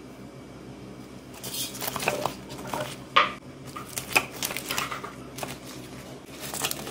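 Crisp deep-fried spring rolls tipped from a wire mesh strainer onto a paper-towel-lined plate: a scattered run of light clicks, taps and rustles as the rolls drop and the strainer touches down, starting about a second and a half in and coming again near the end.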